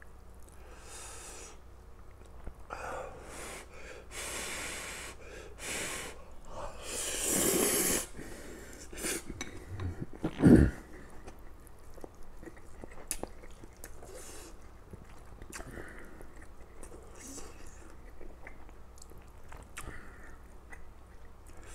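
A man eating stir-fried noodles with chopsticks: several long hissing slurps and noisy breaths through the nose while chewing in the first half, then one loud thump about ten seconds in, followed by small clicks and chewing.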